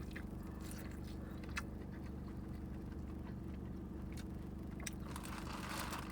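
Close-up eating sounds of a seafood boil: chewing and biting with scattered sharp clicks and small crunches, over a steady low hum. Near the end comes a rougher rustling or smacking noise.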